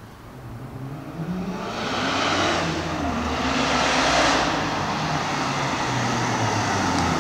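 Exhaust of a 1997 Mitsubishi Galant VR-4's twin-turbo V6, running a decat and a 2.5-inch JapCan backbox, as the car drives back up. It grows louder from about a second in and stays loud, the engine note rising and falling in pitch.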